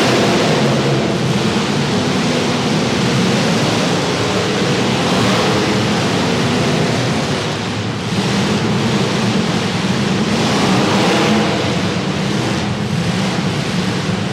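Several demolition derby car engines running and revving loudly together in a dense, continuous noise, their pitch rising and falling.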